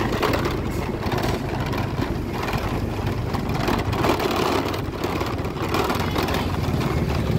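A small vehicle engine running steadily at low speed, among street traffic.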